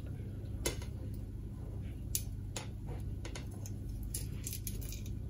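Scattered light metallic clicks and taps as a 6 mm aluminium tube is worked onto the coax centre wire of an SO239 panel-mount connector, over a steady low hum.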